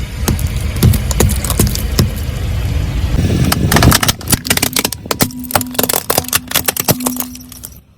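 A car rolling over brittle objects and crushing them: a dense run of crackles and snaps over the low rumble of the car, thickest in the second half, with a steady hum joining about five seconds in.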